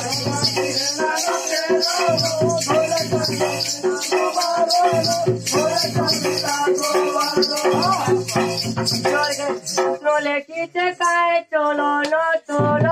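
Folk dance music: a two-headed barrel drum beats in heavy spells under a melody line, over a steady shaking rattle-like jingle. The drum drops out for the last few seconds, leaving the melody on its own until it comes back in at the very end.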